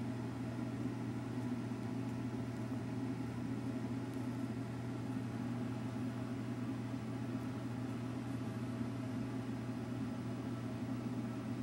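A steady low mechanical hum with no distinct events.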